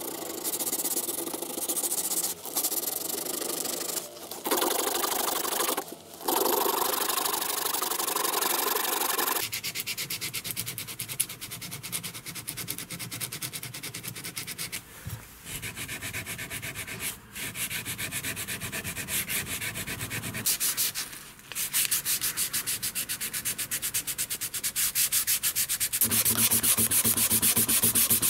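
Sandpaper rubbed rapidly back and forth by hand over a wooden knife handle, in quick even strokes. Near the end it changes to a cloth-backed abrasive strip pulled shoe-shine fashion around the handle, which is louder.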